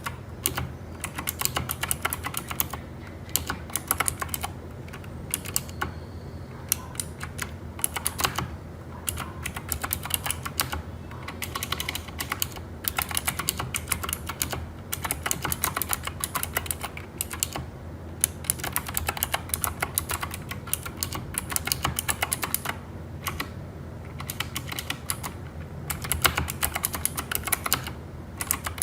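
Typing on a Keychron K4 v2 mechanical keyboard with clicky Gateron Blue switches and silicone-filled keycaps: a fast, continuous run of key clicks, broken by a few short pauses.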